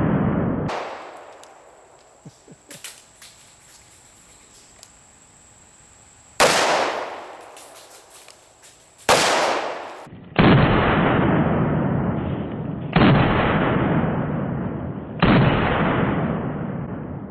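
Taurus Raging Judge revolver firing .410 shells: five loud shots spread over about nine seconds, the last three each trailing a long echo.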